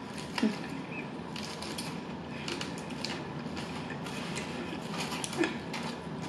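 Close-up eating sounds: chewing, with a few sharp clicks and crunches spaced a second or more apart.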